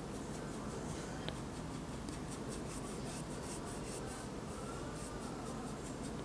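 Paintbrush stroking oil paint onto a painting: a run of short, soft brushing strokes over a steady low room hum.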